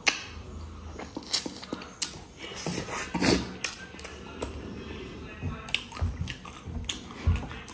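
Close-up eating sounds of mutton leg and rice being bitten and chewed: irregular wet smacks and sharp clicks with a few soft low thuds.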